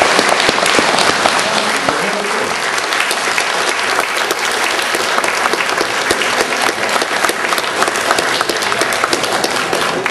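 Audience applauding, a dense, steady mass of hand claps with a few voices mixed in.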